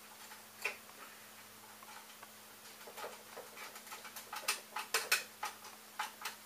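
Light clicks and taps of small hardware and plastic printer parts handled by hand during assembly: one just under a second in, then a quick run of irregular clicks from about halfway on.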